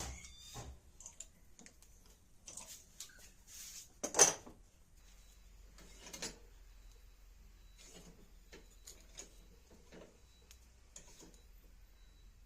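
Scattered light clicks and knocks of small objects being handled, with one louder knock about four seconds in.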